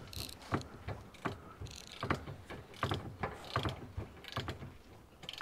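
Ratchet wrench clicking in irregular strokes while tightening a sway-bar bracket bolt into the car's threaded subframe.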